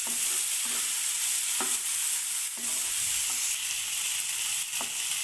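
Sliced onion and chopped tomato sizzling in ghee in a non-stick frying pan, with a steady frying hiss. A spatula stirs and scrapes the pan a few times, as the tomato is sautéed until soft.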